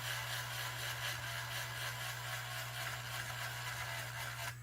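Small slow-speed electric hobby sander running, its steady motor hum under a gritty rasp as the sanding head rubs down dried modelling putty. The rasp stops suddenly near the end while the hum carries on.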